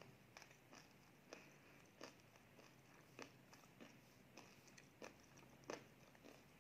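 Faint, close-up chewing: soft, irregular wet mouth clicks as food is chewed with the mouth closed.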